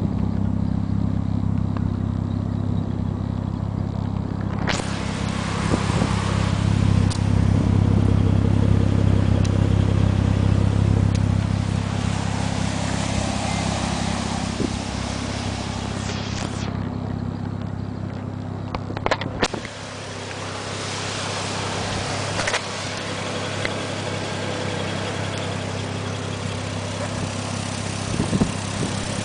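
Single-turbo Toyota Supra MK4's straight-six engine idling steadily, with a rushing hiss over it for a stretch in the middle and a few sharp clicks about two-thirds of the way through.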